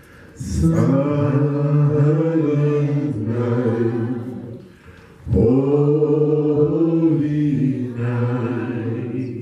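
Slow worship singing, a man's voice leading into a microphone with other voices joining: two long phrases of drawn-out held notes, with a short pause for breath between them about five seconds in.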